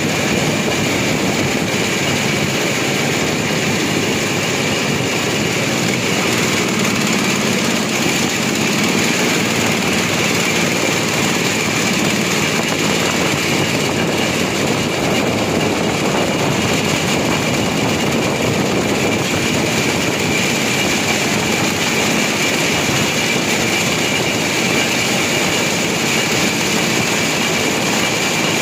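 Open motorized rail inspection car running along the track: a steady engine drone mixed with wheel-on-rail rumble and a steady high whine.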